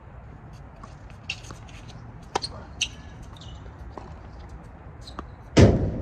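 Tennis on a hard court: a few sharp ball hits and short shoe squeaks, then one loud thump close to the microphone near the end.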